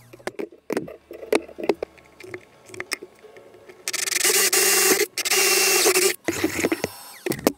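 Cordless drill with a Forstner bit boring into birch plywood, cutting loudly for about two seconds with a brief break partway, after a few seconds of clicks and knocks from handling the tool and workpiece.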